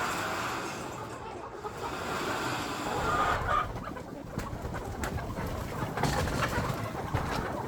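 A flock of chickens clucking and calling, many short overlapping calls.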